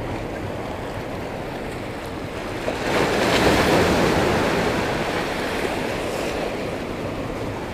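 Ocean waves washing against the boulders of a rock jetty, building to a louder splash about three seconds in and then easing off.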